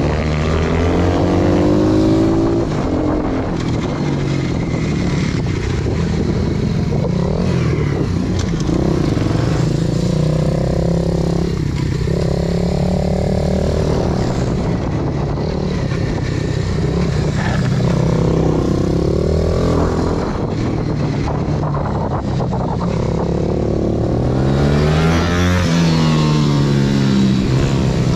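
Single-cylinder 125 cc four-stroke pit bike engine heard from onboard, revving up and falling back again and again as the bike is ridden through a run of tight corners.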